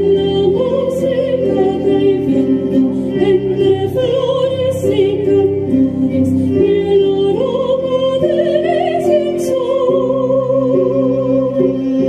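Live classical-style performance: sopranos sing a slow melody with vibrato over sustained stage-piano chords, with a violin playing along.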